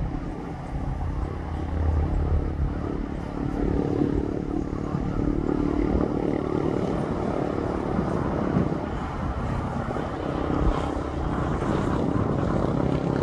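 A steady engine drone with a low hum and a few held tones, swelling slightly and easing, over a hiss of wind or road noise.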